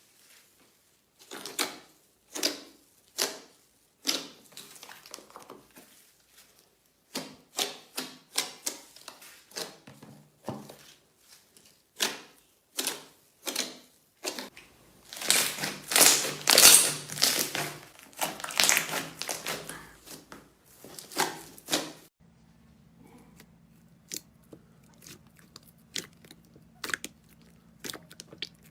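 Slime being pressed and squeezed by hand, giving sharp crackling and popping clicks that crowd into a dense, loud crackle in the middle. Near the end only scattered faint clicks remain over a faint steady hum.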